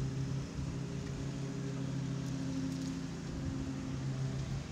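A steady low machine hum at a constant pitch, like a motor or engine running without change.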